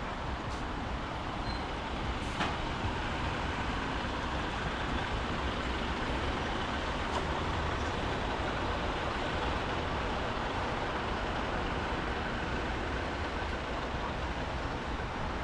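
Traffic on a wet city street: a steady rushing hiss of tyres and engines, swelling a little in the middle as a heavy vehicle goes by, with a few faint ticks.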